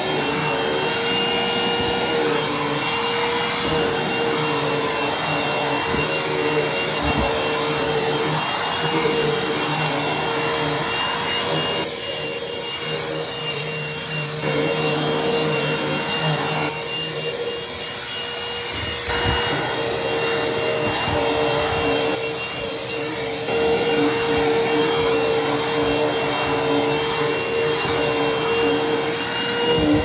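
Dirt Devil SD12000 corded hand vacuum running steadily on carpeted stairs, a constant whine that drops in loudness a few times for a second or two. A few low knocks sound along the way.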